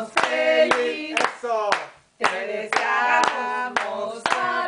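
Several voices singing a song together, with hands clapping along in a steady beat of about two claps a second.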